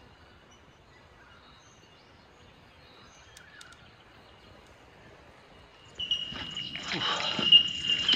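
Quiet bush wildlife: a faint steady high trill with a few faint chirps. About six seconds in, a much louder high, steady ringing call starts up close by.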